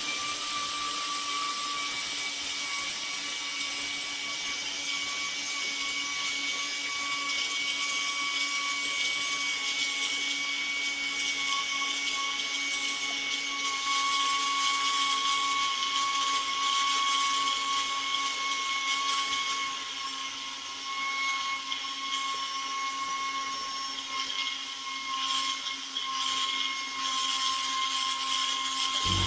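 Pneumatic angle grinder running free on compressed air: a steady high whine over a strong air hiss, cutting off suddenly at the end.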